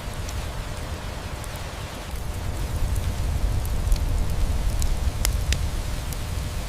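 Steady rain with a low rumble, and a wood fire crackling over it with scattered sharp pops, the loudest about five seconds in.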